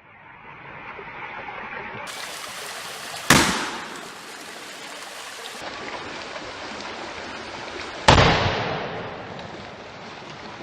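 Two sharp bangs about five seconds apart as aerosol deodorant cans burst in a campfire, each dying away quickly, over the steady rush of a creek.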